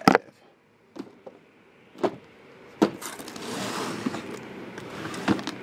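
Handling noise on a table: several sharp knocks and taps, the loudest at the very start, then a rustling from about three seconds in.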